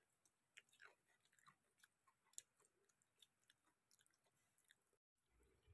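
Near silence with faint, sparse clicks and chewing sounds of someone eating pakhala with her fingers from a steel bowl. Near the end the sound drops out briefly and a low hum starts.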